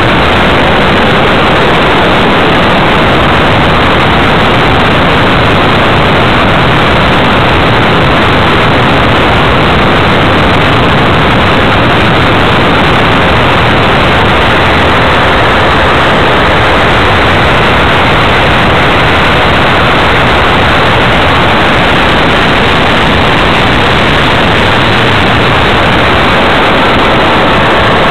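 Steady, loud rushing hiss at an unchanging level, with no clear motor tone, on an RC plane's FPV flight recording.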